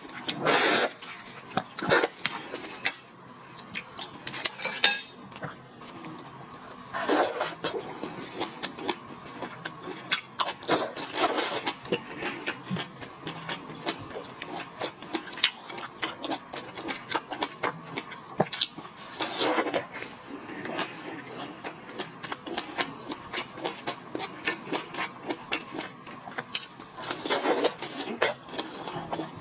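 Lobster and shrimp shells being peeled and eaten: a steady run of small crackles and rubbing of shell, with a few louder crunching bursts.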